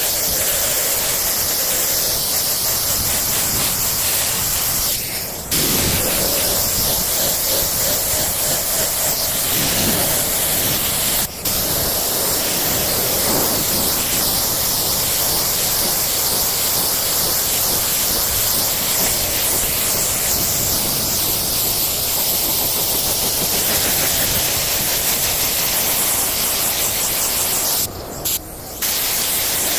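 Compressed-air paint spray gun hissing steadily as primer is sprayed, cutting out briefly when the trigger is let off about five seconds in, again around eleven seconds, and twice near the end.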